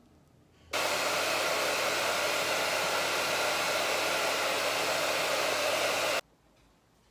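Handheld hair dryer blowing steadily on a washed Yorkshire terrier's wet coat. The loud, even rush of air starts suddenly about a second in and cuts off suddenly near the end.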